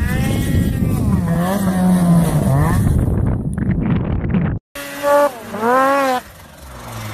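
Snowmobile engines revving hard across two cut-together clips, with an abrupt break about two-thirds of the way through. In the second clip the engine pitch swings up and down, then slides downward near the end.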